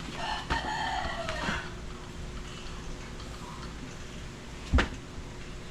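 A drawn-out call whose pitch arches up and then falls over the first second and a half, then a single sharp knock near the end.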